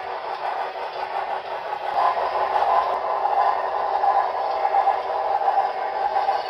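HO-scale model train running on the layout: a steady mechanical rolling noise from the wheels and drive, with no clear beat.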